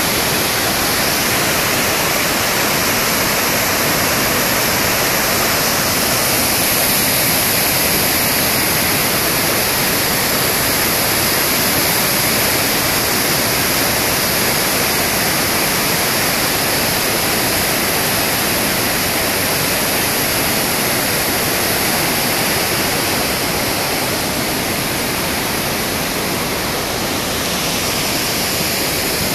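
A river in full flood pouring through rapids and over falls: a steady, unbroken rush of churning water.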